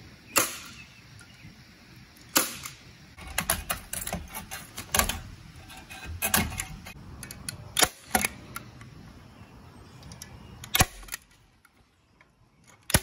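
Hand staple gun firing staples through chicken wire into a wooden frame: a series of sharp snaps, irregularly spaced, mixed with the clicks of tin snips cutting the wire mesh.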